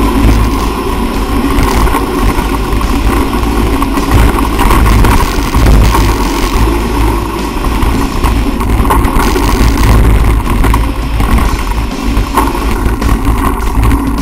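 Wind buffeting the microphone of a camera carried on a fast downhill mountain-bike ride, with a steady low rumble and rattles and knocks from the bike bouncing over the rough dirt trail.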